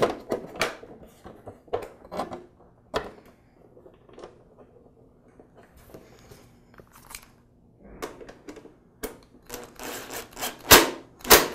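Scattered plastic clicks and knocks as the plastic back panel of an espresso maker is handled and seated on its housing. Near the end a cordless screwdriver briefly drives a screw into the panel, with two sharp, louder clacks.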